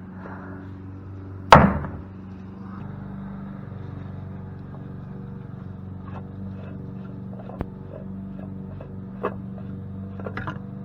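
Pump parts being handled while it is taken apart for scrap: one loud, sharp clank about one and a half seconds in, then a few light clicks and taps, over a steady low hum.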